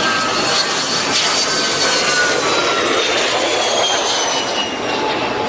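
Pressure washer running: a steady hiss of spraying water with a high whine that slowly falls in pitch, washing mud off a toy.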